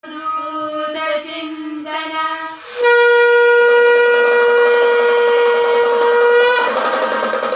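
Conch shell (shankh) blown: a couple of shorter, wavering notes, then one long steady note held for about four seconds that lifts slightly in pitch just before it stops.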